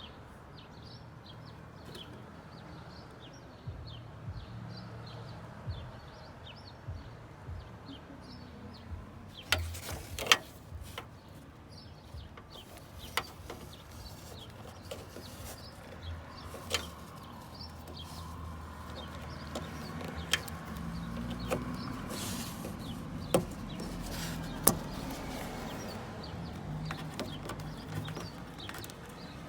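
Faint steady background with scattered sharp clicks and knocks, the loudest a handful of single knocks through the middle, and a few faint short high chirps at the start.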